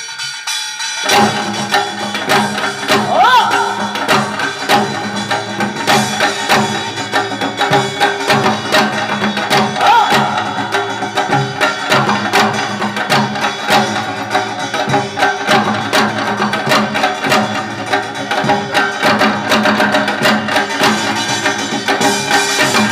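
Korean traditional folk music: a janggu hourglass drum plays a steady rhythm under sustained instrumental accompaniment, starting about a second in.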